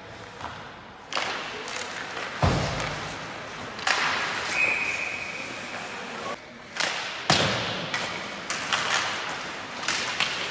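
Ice hockey play: skates scraping across the ice and several sharp knocks of sticks and puck, the loudest a heavy thump about two and a half seconds in. A short high tone sounds near the middle.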